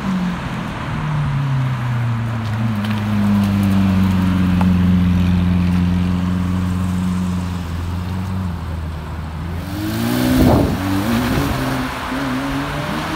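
Lamborghini Aventador's V12 engine running at low revs, a steady deep engine note as the car moves off slowly. About ten seconds in, an engine revs in a few quick rising and falling bursts.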